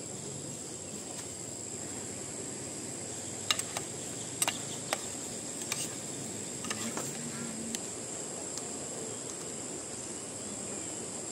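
Steady high-pitched insect chorus. Over it, a handful of sharp metallic clinks between about three and a half and eight seconds in, a metal spoon knocking against an aluminium cooking pan on a camp stove.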